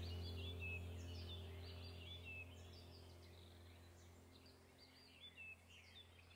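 Faint birdsong: many short chirps and whistles over a low steady drone. The whole background track fades away.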